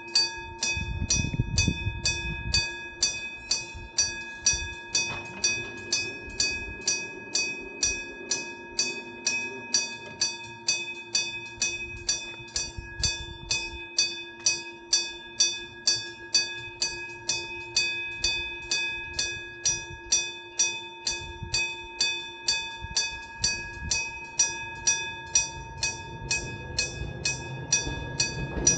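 Electric-bell railway crossing signal ringing "kan-kan": a mechanical striker hits the bell about twice a second, each stroke ringing on in a steady metallic tone. A low rumble rises near the end.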